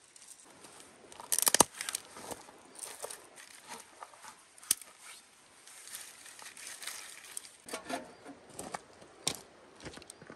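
Dry twigs and kindling being handled and snapped: irregular rustling and crackling with scattered sharp snaps, the loudest cluster about a second and a half in.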